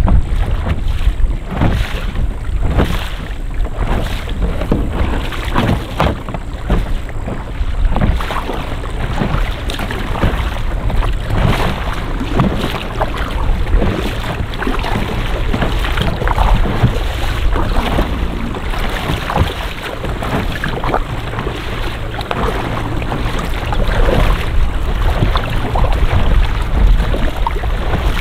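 Kayak under way on open water: a steady rush of water along the hull with irregular splashes, and wind buffeting the microphone.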